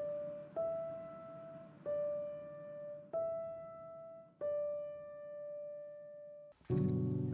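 Background music of slow single keyboard notes, each struck and left to ring, about one every second and a bit; a fuller, louder passage with low notes and quicker notes comes in near the end.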